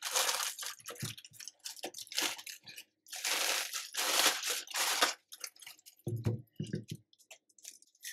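Clear plastic bag crinkling and rustling in irregular bursts as it is pulled open and the amplifier board is drawn out of it, loudest from about three to five seconds in. A few soft, dull knocks follow about six seconds in.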